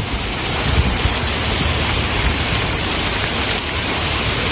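Torrential hurricane rain pouring down in strong wind: a loud, steady rushing hiss with a low, uneven rumble underneath.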